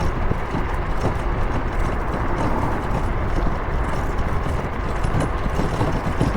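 Steady road and wind rumble of travelling along a road, with a few faint knocks.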